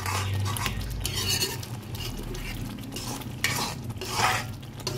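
A metal spoon stirring and scraping thick gravy around a hot metal pan in a series of swishes, the strongest near the middle and end, while the gravy fries. A steady low hum runs underneath.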